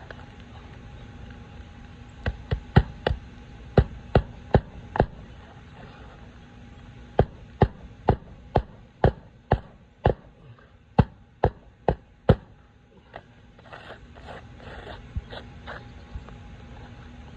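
Hammer driving roofing nails into an asphalt shingle: a run of about eight sharp strikes, a short pause, then about a dozen more at roughly two a second. Softer scuffing follows near the end.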